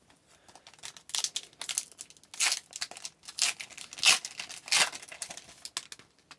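Foil wrapper of a hockey card pack being torn open and crinkled, in a series of short rustling bursts.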